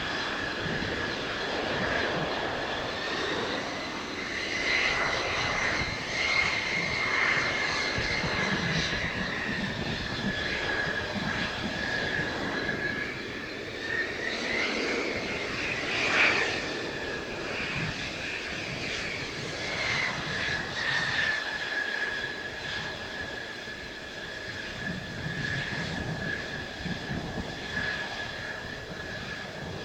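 Mitsubishi F-2 fighter's jet engine running at low power, a steady high whine that drifts slightly up and down in pitch.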